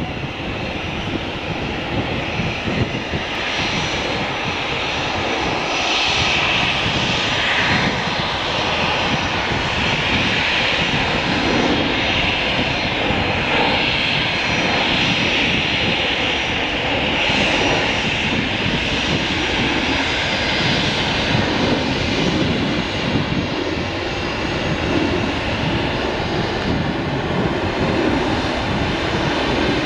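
Boeing 737-300's CFM56 turbofan engines running at taxi power, a steady jet whine and rush that grows louder over the first few seconds and then holds.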